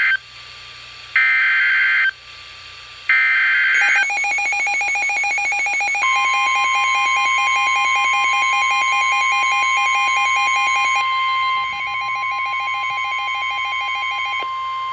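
Midland WR-100 weather radio sounding an Emergency Alert System alert. First come three short, screechy digital data bursts of about a second each, the SAME header, which end about four seconds in. Then the radio's own alarm beeps rapidly, joined about six seconds in by the steady Weather Service warning alarm tone, which holds until the end.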